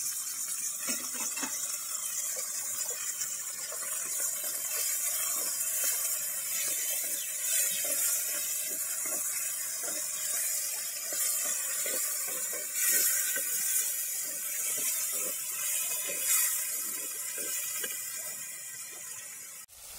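Shallots and tomatoes sizzling in hot oil in a clay pot, a steady hiss, with a wooden spatula scraping and stirring them in repeated strokes.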